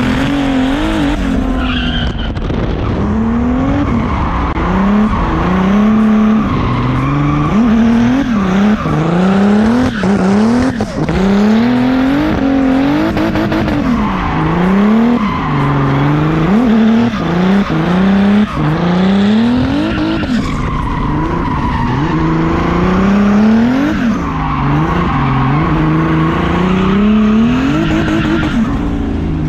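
Turbocharged BMW E36 with an M50 stroker straight-six, driven hard while drifting. The engine revs climb and drop again every second or two, with the tyres squealing throughout.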